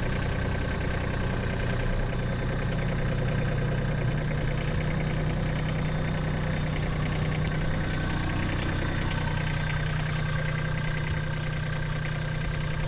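Kubota B2301 compact tractor's three-cylinder diesel engine running steadily as the tractor is driven.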